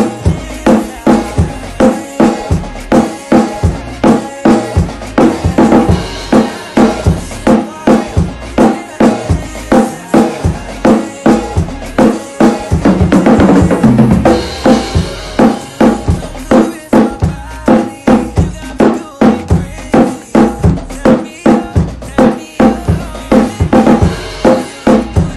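Drum kit played live, kick and snare hitting a steady groove along to a pop song backing track, with a dense run of hits about halfway through.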